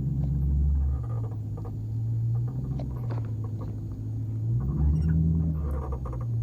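Dodge Challenger R/T's V8 exhaust rumbling at low speed as the car rolls over a speed bump, with short scattered squeaks and creaks from the car over the top. The squeaking is an unexplained noise that started after collision repair.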